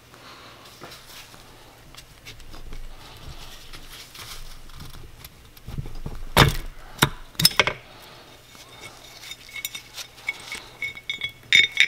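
Cylinder of a Yamaha YZ250F four-stroke engine being worked loose by hand and lifted off its studs over the piston: scraping and handling at first, a few sharp knocks about six to seven and a half seconds in, then light ringing metal clinks near the end.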